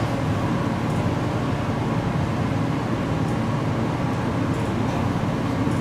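Steady rumble and rush of air inside a 1985 Otis Elevonic 401 traction elevator's cab as it travels at speed between floors, even and unchanging throughout.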